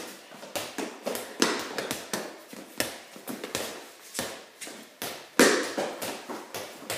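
A basketball being bounced on a concrete floor, a string of irregular thumps with sneaker steps between them, one hard bounce about five and a half seconds in. The hits echo off the walls of the garage.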